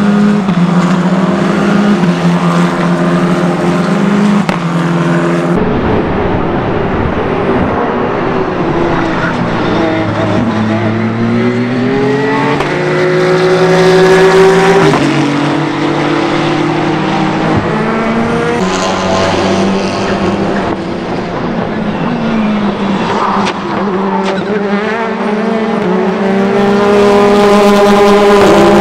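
Racing-car engines at speed on a circuit, several cars in turn across edited clips, including a Tatuus F4 single-seater, a Porsche 992 GT3 Cup and a Hyundai Elantra N TCR. The engine notes rise as the cars accelerate through the gears and drop on downshifts, with abrupt cuts between clips.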